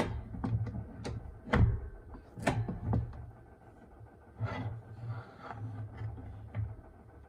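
A series of sharp clicks and light knocks, with dull thuds beneath, as the parts of a button press cutter are handled and set in place; the clicks grow fainter and sparser after about five seconds.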